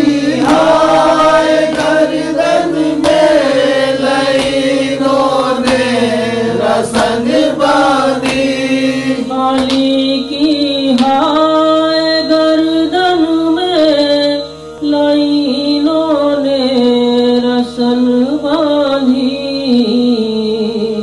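Male voice chanting a slow noha (Shia lament) melody, with long held and gliding notes.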